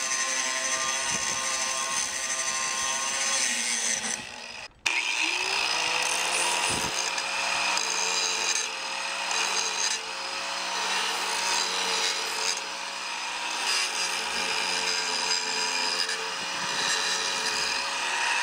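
Electric angle grinder cutting through the steel wire of a cattle panel, a steady motor whine over a harsh grinding hiss. About four and a half seconds in it stops briefly, then spins back up with a rising whine and runs steadily again.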